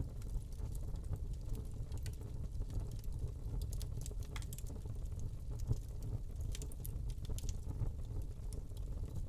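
Wood log burning in a fireplace: scattered small crackles and pops over a steady low rumble of the flames.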